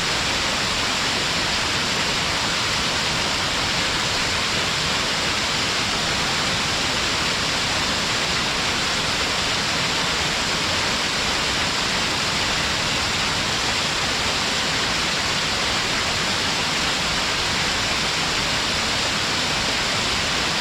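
Stepped waterfall: water pouring down over rock ledges in a steady, unbroken rush with a bright hiss.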